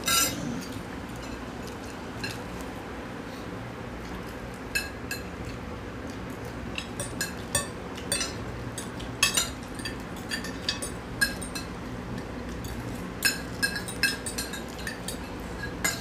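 Forks and spoons clinking against glass plates while people eat noodles: scattered short ringing clinks, few at first and coming thick and fast in the second half.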